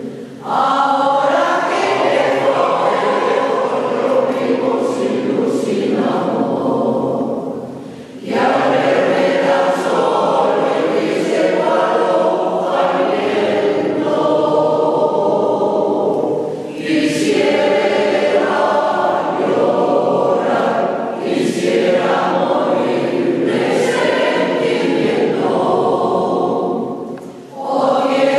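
Mixed choir of men's and women's voices singing together, in long phrases broken by short pauses about eight seconds in, about sixteen seconds in, and near the end.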